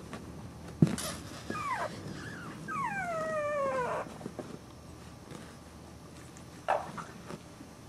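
Young boxer puppy whimpering: a couple of short falling whines, then a longer whine sliding down in pitch about three to four seconds in. A sharp knock just before the first second.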